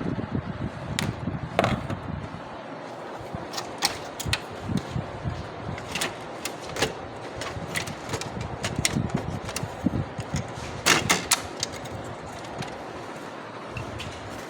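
Irregular mechanical clicks and knocks from an HP 3035/3005 laser printer, over a steady background hum, with a quick cluster of louder clacks near the end.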